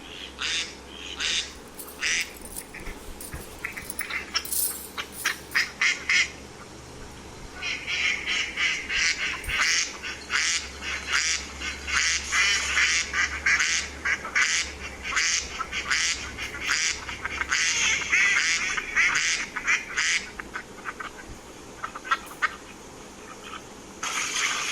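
Ducks quacking in runs of short calls. The calls are sparse at first, then come thick and fast through the middle, and thin out again near the end.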